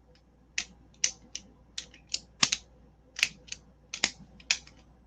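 A small object clicked repeatedly by hand: sharp, separate clicks at an uneven pace, about two or three a second.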